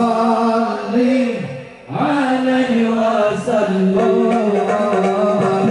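Islamic devotional singing (sholawat/dzikir chant) with long, held, ornamented notes. It fades and breaks off briefly about a second and a half in, then resumes.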